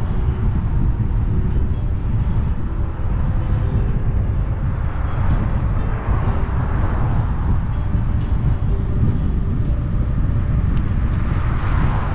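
Steady, choppy low rumble of wind buffeting the microphone of a camera riding on a moving bicycle, mixed with car traffic on the road alongside. Traffic noise swells as cars pass about halfway through and again near the end.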